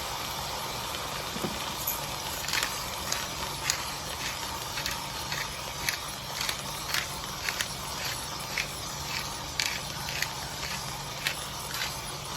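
A beef roast searing in hot oil in a skillet: a steady sizzle with irregular sharp pops and spatters from about two seconds in.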